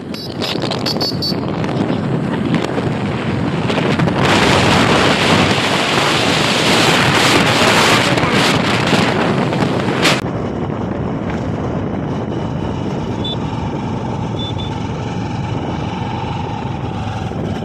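Wind rushing over the microphone of a moving motorcycle, with the engine running underneath. The rush is loudest in the middle, then drops suddenly about ten seconds in to a steadier, quieter run.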